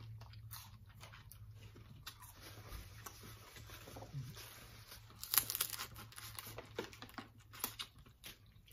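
Close eating sounds from fried chicken wings and boiled crawfish: chewing and crunching with scattered crackles and clicks, busiest about five seconds in.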